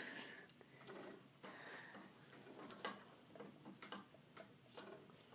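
Near silence with faint, irregular clicks and rustles from a hand-held phone being moved around.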